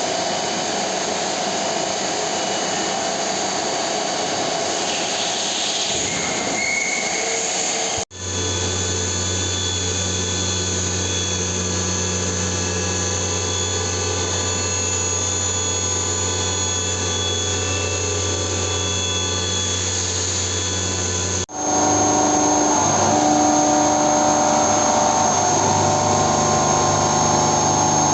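CNC milling machine running: a steady machine sound with several held tones. It changes abruptly twice, about 8 and 21 seconds in, and the last stretch is louder.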